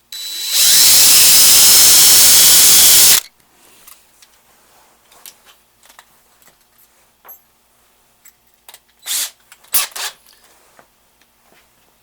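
Power drill with a 7/64 bit drilling out a center-marked hole in a Pontiac Quadrajet's OEM choke bracket. It spins up with a rising whine, runs for about three seconds and stops abruptly. It is followed by light handling clicks and two brief noisy bursts near the end.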